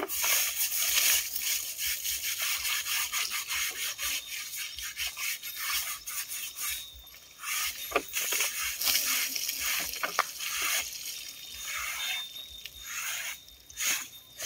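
Bucketfuls of water thrown over an Asian elephant, splashing off its back onto the ground, with hands scrubbing and rubbing the wet hide in between. Short sharp splashes and slaps stand out about eight and ten seconds in.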